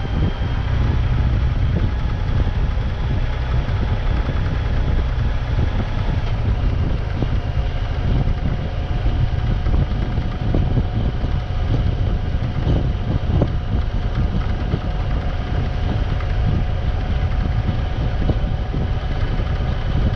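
A vehicle engine running steadily with a heavy low rumble, with occasional short knocks.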